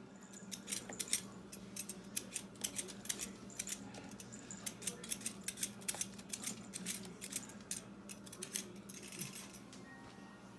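Hand vegetable peeler scraping the skin off a raw potato in quick repeated strokes, several a second, stopping about a second before the end.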